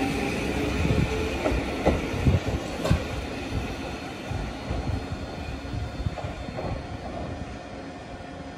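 Eizan Railway 'Hiei' electric railcar running away along the track. Its wheels clack sharply over rail joints and points several times in the first three seconds, then its rumble fades steadily as it recedes.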